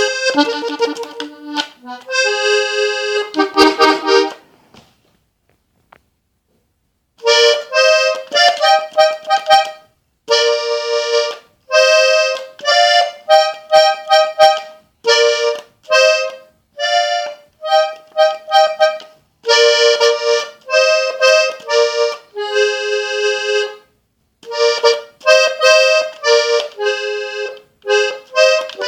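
Three-row diatonic button accordion tuned G-C-F (a "sol" accordion) playing a melody in short, detached phrases in E-flat. It stops about five seconds in and picks up again two seconds later.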